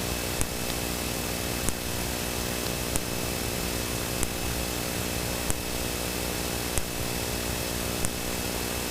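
Cessna Citation V's Pratt & Whitney JT15D turbofans running at idle, heard in the cockpit as a steady hum with several constant tones, during the rollout after landing. A sharp click repeats about every 1.3 seconds, seven times.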